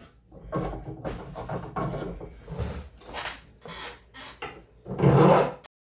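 Back-and-forth rasping strokes of a hand tool cutting two threads off the end of a bolt, about two strokes a second, the last one the loudest; the sound cuts off suddenly near the end.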